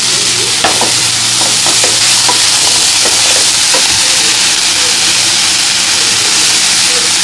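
Shredded cabbage sizzling in hot oil in a nonstick pan as a wooden spatula stirs it. Light scrapes and taps of the spatula on the pan come through during the first few seconds.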